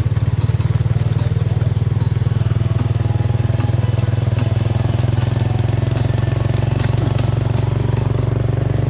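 Mini train's engine running steadily under way, heard from aboard, with light rattles and clicks from the moving train.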